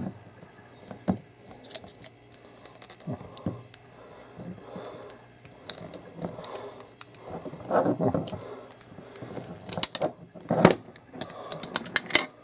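Hands unwrapping and opening a clear plastic retail box: crinkling wrap and scattered clicks and taps of the hard plastic case being handled, busiest in the second half.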